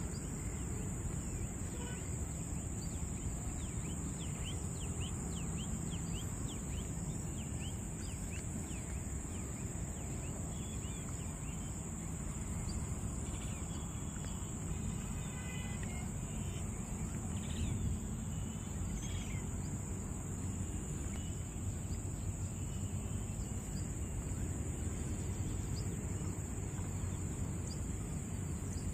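Outdoor ambience: a steady high-pitched insect drone over a low rumbling background, with scattered short bird chirps, mostly in the first half.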